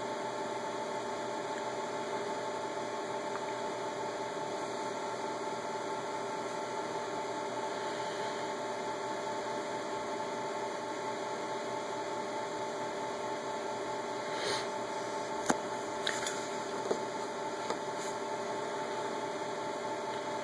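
Steady electrical hum and hiss with several whining tones, typical of a bench power supply running under load as it drives a Peltier (TEC) module at about 50 watts. A few faint clicks come near the end.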